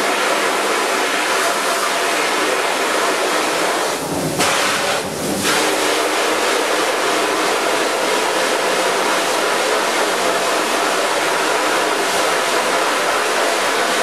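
Water spraying from a hose spray nozzle onto a screen-printing screen, washing out the unexposed photo emulsion to develop the stencil. A steady hiss that falters briefly twice, about four and five seconds in.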